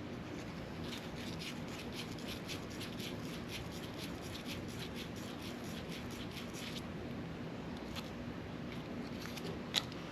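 Quick repeated scraping strokes of a small hand tool working on a fishing rod, about three a second for several seconds, over a steady low hum, with a sharp click near the end.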